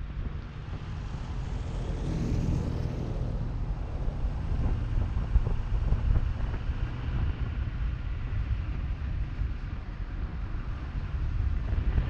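Car driving slowly on a paved road: low, uneven rumble of tyres and wind buffeting the camera's microphone, with a brief swell of higher hiss about two seconds in.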